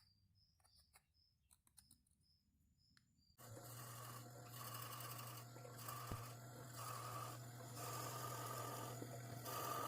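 Faint high bird chirps at first. Then, about three and a half seconds in, a drill starts running steadily with a low hum and a regular pulsing as it bores into an African blackwood knife-handle block.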